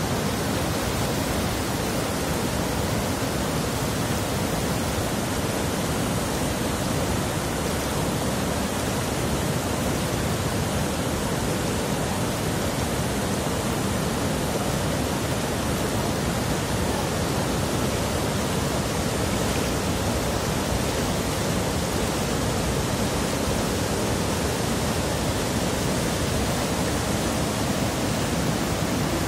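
Mountain stream rushing and cascading over boulders in a small waterfall: a loud, steady rush of white water.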